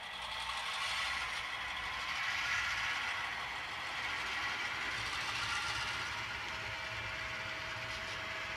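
HO-scale model diesel locomotive running, with the diesel engine sound from its SoundTraxx Tsunami2 sound decoder mixed with the mechanical running noise of the model. The sound grows louder about half a second in and then holds steady.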